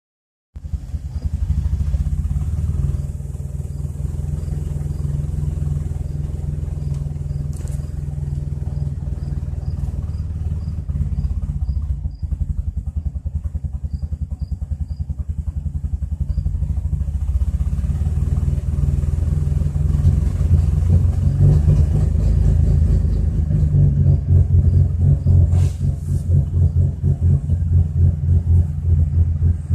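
2004 Chrysler Crossfire's 3.2-litre V6 idling roughly, with an uneven pulsing beat that grows stronger in the second half.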